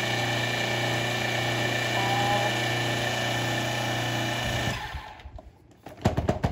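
Food processor motor running steadily as it grinds dried bread and herbs into breadcrumbs, then switched off a little past halfway and spinning down. A few sharp knocks near the end.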